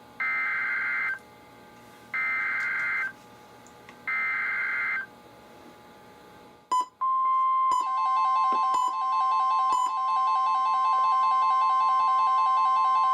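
NOAA Weather Radio SAME alert header: three roughly one-second stretches of buzzing digital data tones, about two seconds apart. About seven seconds in, the steady 1050 Hz warning alarm tone starts and holds. Soon after, a weather radio receiver's wavering alert beeps join it.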